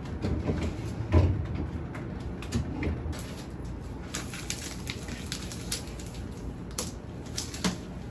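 Groceries being put away in a refrigerator: scattered knocks and clatter of items set on the shelves, with a louder thump about a second in. Near the end come light clicks and taps as plastic juice jugs are handled.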